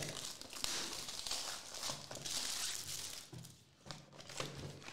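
Cellophane shrink-wrap crinkling and tearing as it is stripped off a small cardboard trading card box, with the box being handled and opened.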